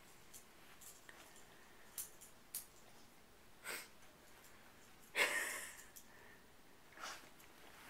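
Dog rooting with its nose in bed covers as it tries to bury a chew bone: a few short rustles and breaths, the loudest a longer burst about five seconds in, with a shorter one about seven seconds in.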